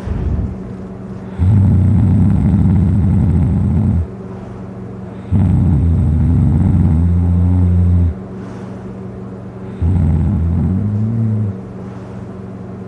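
A person passed out drunk, snoring loudly: three long, low, rough snores about four seconds apart, each lasting two to three seconds, over a steady low hum.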